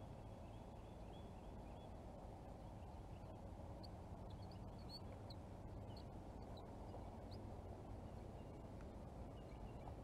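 Faint outdoor background: a steady low rumble, with a few short, high bird chirps about midway.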